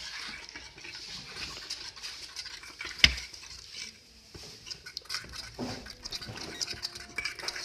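A spoon stirring and scraping a slime mixture in a container, with small clicks throughout and one sharp knock about three seconds in.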